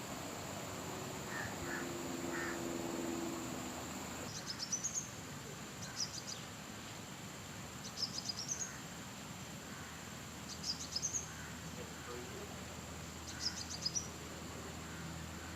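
A bird repeating a short burst of quick high chirps every couple of seconds, over steady outdoor background noise; for the first few seconds a steady high whine runs under it.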